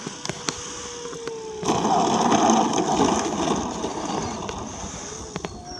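Electric Sebart Sukhoi 29 RC model plane with an Axi brushless motor, its motor and propeller whine sinking slightly in pitch as it comes in to land. Under two seconds in the whine stops and a sudden loud rough noise follows for about two seconds as the model touches down and rolls over the grass, then fades.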